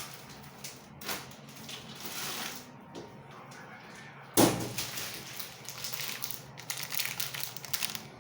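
Kitchen handling sounds while pasta is being prepared: scattered light rustles, one sharp loud knock with a short ring about four seconds in, like a pot or pan being set down, then a run of quick clicks and rustles near the end.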